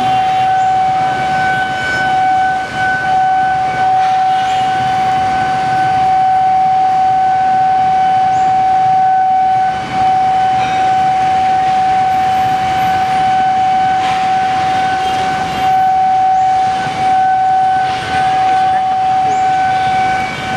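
Railway level-crossing warning alarm sounding a steady high tone, over the rumble of trains on the tracks.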